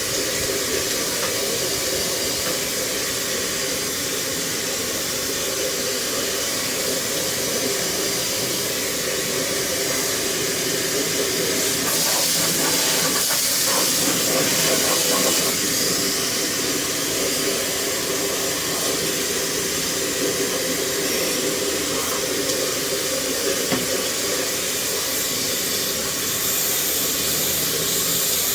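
Steady hiss of a water jet from a pressure-washer nozzle spraying an air-conditioner unit during cleaning, with a low motor hum underneath, slightly louder for a few seconds around the middle.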